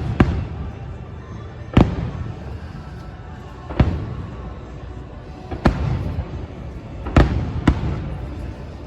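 Fireworks bursting: about six sharp booms at uneven gaps of one to two seconds, each trailing off in a short rumble, over a steady low rumble.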